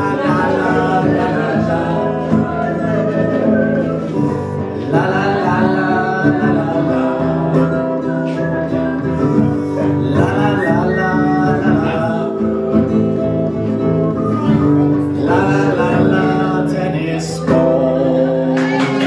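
Acoustic guitar strummed steadily, with a man singing along into the microphone.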